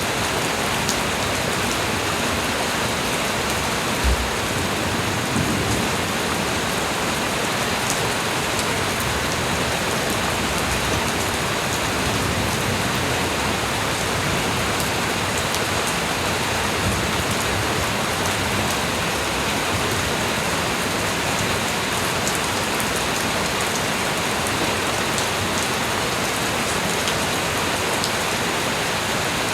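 Light rain falling steadily, with scattered individual drop ticks. A short low thump sounds about four seconds in.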